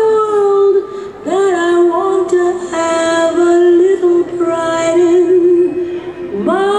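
Music with a singer holding long notes with a light vibrato, one sustained phrase after another.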